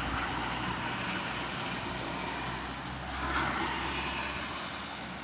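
A small car driving slowly past on a waterlogged road, its engine humming and its tyres hissing through the surface water, over the steady noise of heavy rain. The engine hum fades after about three seconds, and a swell of watery hiss comes at about three and a half seconds.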